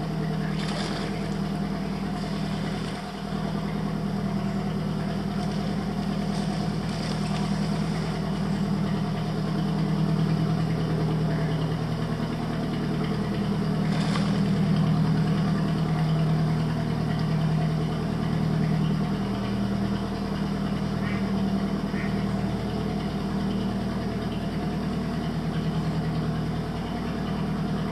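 Small motorboat's engine running steadily, a low even hum.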